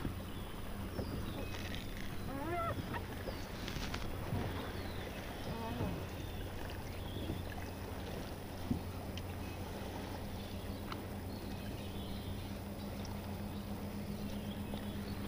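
Steady low hum of an electric bow-mounted trolling motor holding the bass boat in place, with a few faint wavering calls a few seconds in.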